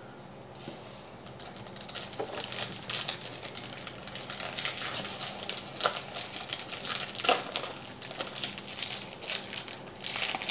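Baseball trading cards being handled and flipped through: a quick, uneven run of light clicks and crinkling that starts about a second in.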